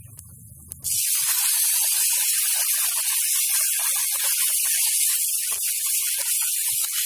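Water poured into a hot kadhai of ghee-roasted vermicelli, sizzling and hissing as it flashes into steam. The hiss starts suddenly about a second in and then carries on steadily.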